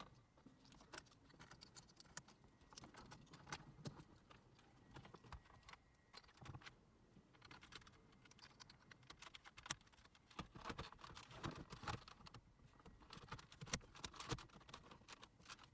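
Faint, irregular light clicks and taps of a plastic dashboard bezel being handled while its wiring connectors are plugged in.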